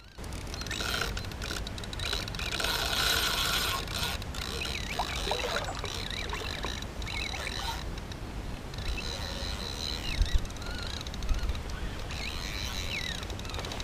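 Carp spinning reel being cranked to wind in line while playing a hooked fish, with rubbing and handling noise from the body-worn camera. A couple of sharp knocks come about ten seconds in.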